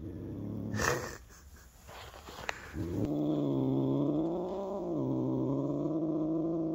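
Maine Coon cat purring: a deep, steady rumble that starts about three seconds in, loud "like a semi truck". A brief rustle of handling comes just before it.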